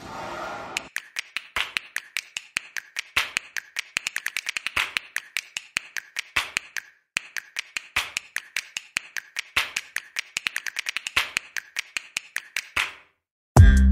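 Quick, irregular run of sharp metallic clicks and clinks, several a second, each with a short ring: hand tools working on metal, sped up in a time-lapse. The clicking stops shortly before loud music comes in right at the end.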